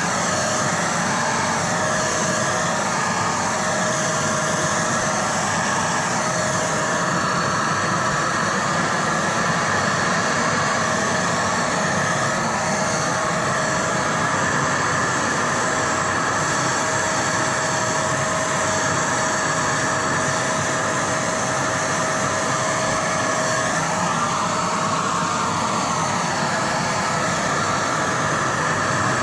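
Tacklife electric paint sprayer running continuously while spraying paint: a steady motor-and-air noise with a constant whining tone in it.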